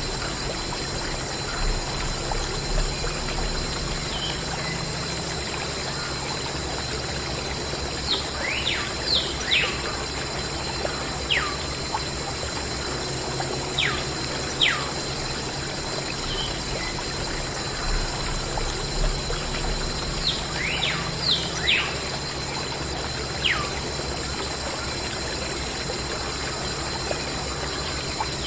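Water trickling and pouring steadily, with high bird calls that fall sharply in pitch, coming singly or in small clusters every few seconds.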